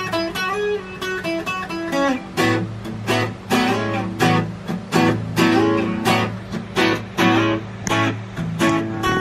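Takamine JJ 12-string acoustic guitar strummed in a steady rhythm, with bass notes ringing between the strokes, being test-played after its repair.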